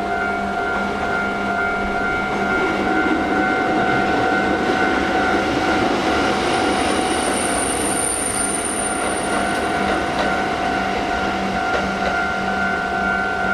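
Kotoden Nagao Line electric train, a former Keikyu car, passing over a level crossing: wheels running on the rails, swelling and easing over several seconds. A thin high squeal from the wheels sounds from about six to ten seconds in, over steady tones that run throughout.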